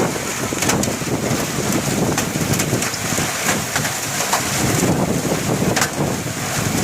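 Heavy rain falling steadily: a dense hiss with scattered sharper ticks of drops striking.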